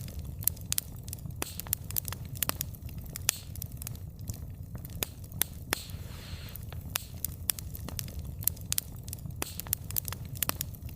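Wood fire burning, the logs crackling with frequent irregular sharp pops over a steady low rumble of flame. A short hiss comes in about six seconds in.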